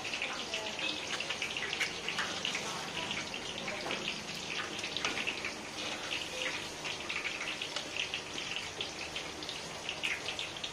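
Boondi, drops of gram-flour batter, sizzling and crackling steadily as they deep-fry in hot oil in a kadai.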